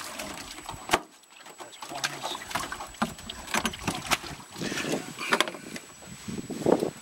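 Water splashing onto the floor of a metal boat, then irregular knocks and clatter of a landing net and gear against the hull, with one sharp knock about a second in.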